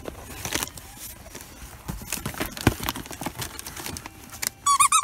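Hands handling plush toys and rubbing and tapping on a cardboard shoebox: rustling with scattered small knocks and clicks. Near the end a loud, high, warbling pitched sound starts.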